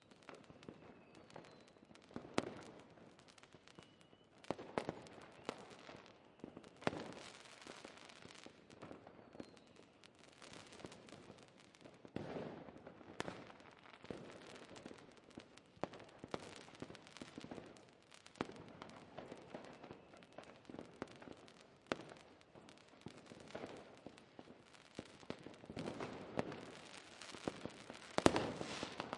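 Fireworks going off: irregular sharp bangs every second or so over continuous crackling, with the loudest bang near the end.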